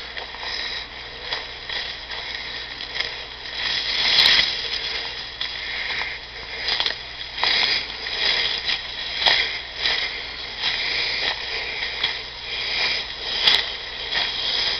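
Uneven crunching and clicking rustle close to the microphone, with a louder crunch every second or two: handling or walking noise.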